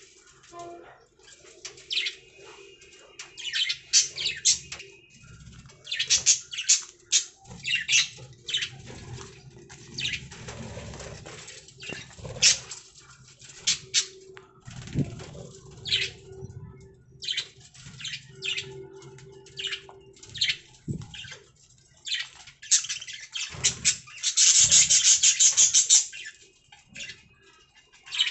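Pet budgerigars chirping and chattering in many short, quick calls, with a loud burst of rapid chatter near the end.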